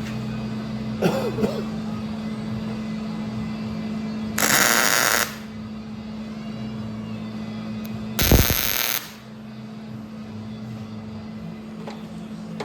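Two short bursts of welding, each about a second long with a harsh hissing crackle, as the smoker's steel is tacked together. The bursts come about four seconds apart over a steady hum.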